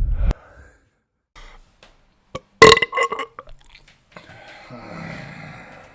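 A loud, short burp about two and a half seconds in, with the tail of an earlier burp at the very start. A quieter drawn-out sound follows in the second half.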